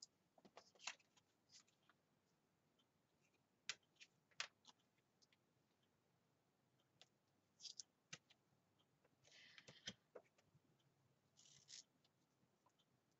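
Faint, scattered taps and a few short scratchy rasps as washi tape is peeled out and pressed onto a paper planner page.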